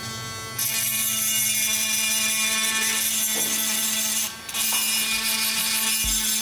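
Small handheld rotary tool with a pink grinding stone grinding the metal body of a diecast model car: a steady motor hum under a gritty grinding hiss, starting just over half a second in. It drops away briefly a little after four seconds in, then the grinding resumes.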